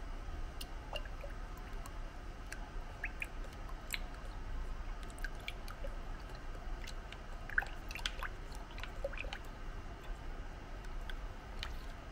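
Plastic spoon stirring a milky liquid in a plastic measuring jug: scattered light clicks of the spoon against the jug over soft wet squishing.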